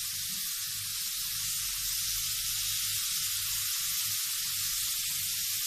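Tomato slices sizzling in a hot stovetop grill pan over a gas burner, a steady hiss with a low hum underneath.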